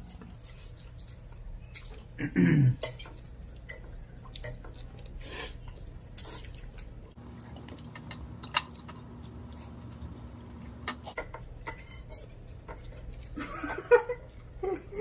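Two people eating noodles fast with metal forks: scattered clicks and scrapes of forks on plates, with chewing and slurping. A short vocal sound comes about two and a half seconds in, and voices again near the end.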